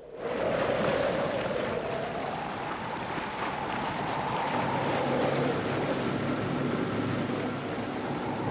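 Wind and rushing sea water around a sailing yacht under way, a steady noisy wash with a wavering whistle in the middle range. A steady low hum, most likely the boat's engine, joins about halfway through.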